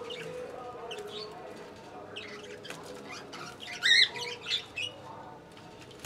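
Budgerigars chirping in short, high calls, with one loud squawk about four seconds in.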